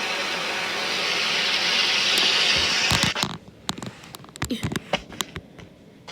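Fire extinguisher spraying: a steady hiss that swells slightly, then cuts off suddenly about halfway through. Several short clicks and knocks follow.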